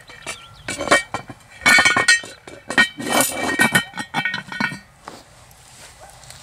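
Cast-iron Dutch oven lid being lowered and settled onto the pot with a metal lid lifter: a series of clanks and scrapes of iron on iron, with a ringing metallic tone. It stops about five seconds in.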